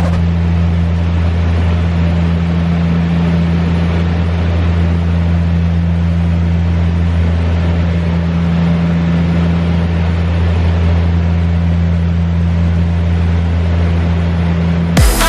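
An engine running steadily with a constant low drone and a rushing hiss over it. It cuts off suddenly near the end.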